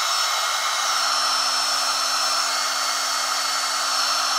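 Handheld electric heat gun running steadily: a rush of air with a low hum and a thin high whine, as it shrinks heat-shrink tubing over a soldered wire joint.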